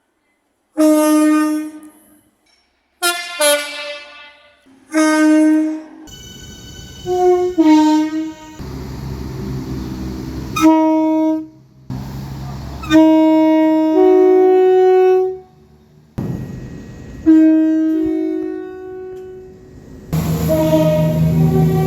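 Train horn blasts from several recordings cut together: short toots and longer blasts, some stepping between a lower and a higher tone, over a changing background rumble.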